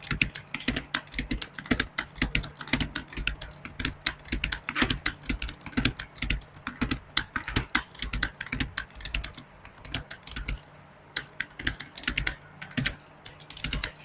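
Fast typing on a computer keyboard: a quick, uneven run of key clicks with a short pause about ten seconds in.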